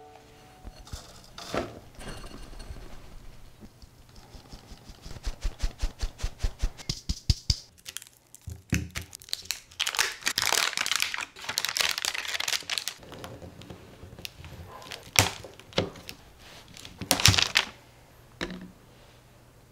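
Foil-lined paper butter wrapper being peeled open and unfolded from a cold block of butter, crinkling in a dense spell and then in a few sharp bursts. A quick run of small clicks comes a few seconds before the crinkling.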